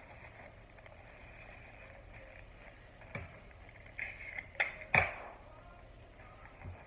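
Scotch tape being pulled and torn off the roll and pressed onto a crumpled bag, with crinkling; a few short sharp rips, the loudest cluster between about four and five seconds in.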